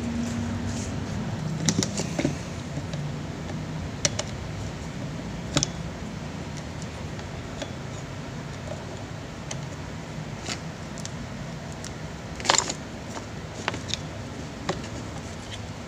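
Scattered clicks and knocks from a bare electric fan motor being handled on a workbench: its metal housing and plastic wiring block tapping and rattling, with a louder clatter a little before the end. A steady low hum runs underneath.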